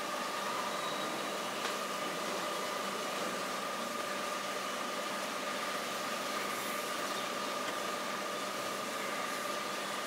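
Steady machine hum with a high whine over an even hiss, unchanging throughout.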